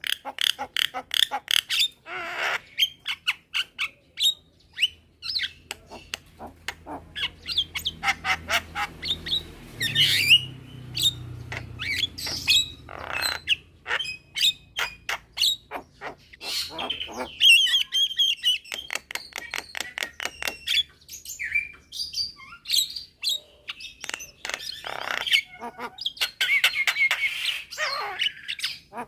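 Javan mynas calling back and forth: a dense, continuous run of rapid clicking notes and harsh squawks, several birds answering one another.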